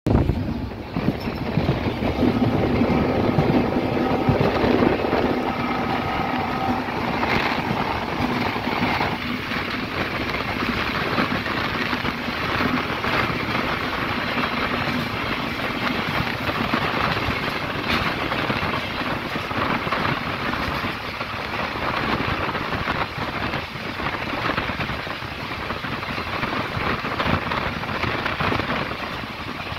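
Running noise of a moving passenger train heard from a coach doorway: wheels on the rails and rushing air, steady throughout, with a held tone in the first several seconds that fades out.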